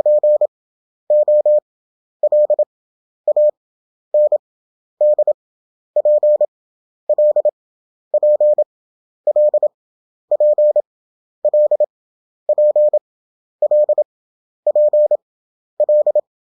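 Morse code practice tone sent at 27 words per minute with Farnsworth spacing to 11 wpm effective: a steady single-pitched beep keyed into quick dots and dashes, one letter about every second with pauses between letters.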